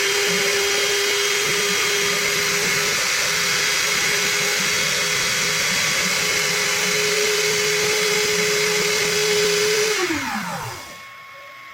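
The 800 W trim router spindle of a desktop CNC router runs steadily at high speed with a held whine. About ten seconds in it is switched off, and its whine falls in pitch as it spins down to a stop.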